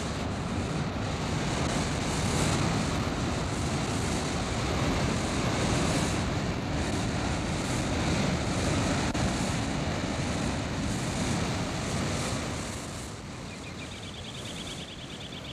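White-water rapids on a large river, a steady heavy rush of water. The rush drops to a lower level about thirteen seconds in.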